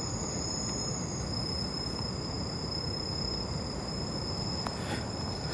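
Steady outdoor background hiss with a thin, high, steady whine over it and a couple of faint ticks near the end.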